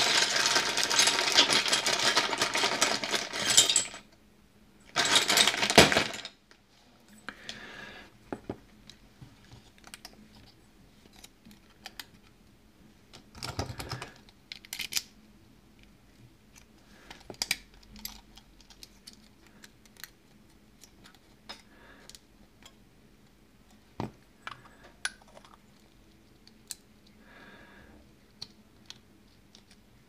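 Small lock-gutting tools and parts being handled: a dense clatter of hard objects for the first four seconds and another short burst about five seconds in. After that come sparse light clicks and taps of metal on metal as a brass Yale lock cylinder is worked with its key and a follower bar to push out the plug.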